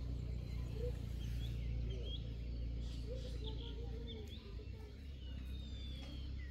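Birds chirping in short calls, with a longer falling whistle about five seconds in, over a steady low rumble.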